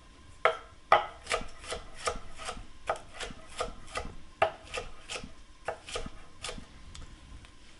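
Kitchen knife slicing a green bell pepper on a wooden cutting board: a steady run of short knocks as each cut reaches the board, about three a second.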